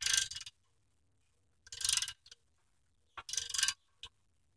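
Hand socket ratchet clicking in three short bursts, roughly one every one and a half seconds, with a few single clicks between them, as it backs out a bolt that has already been broken loose.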